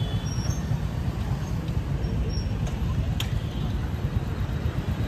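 Town street traffic: a steady low rumble of passing vehicles.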